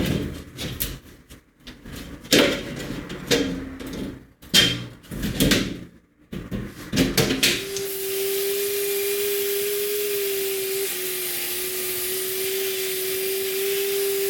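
Irregular clatter and knocks of metal parts being handled. Just past halfway they give way to the steady hiss of a shot blast cabinet blasting the differential case, with a steady tone running underneath.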